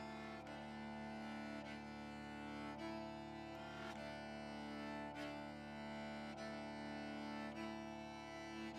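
Instrumental background music: slow held notes over a steady low tone, the notes changing together about every second.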